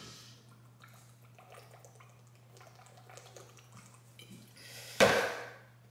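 A person gulping water from a plastic bottle to swallow vitamin pills, with faint repeated swallows, then a sudden loud burst of noise about five seconds in.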